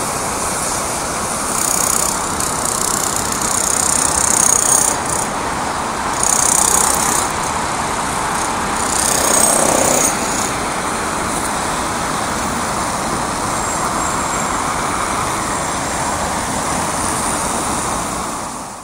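City street traffic: a steady hum of cars on a wet road, with four louder passes in the first ten seconds as vehicles go by, their tyres hissing on the wet asphalt.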